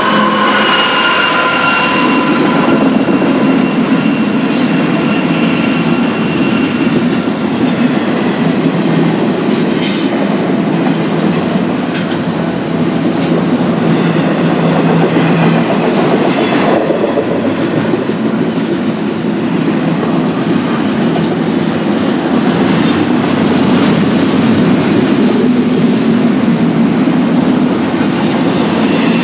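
BNSF intermodal freight train rolling past, its steel wheels clicking over the rail joints in a steady dense rumble. A thin wheel squeal rings over it for the first several seconds.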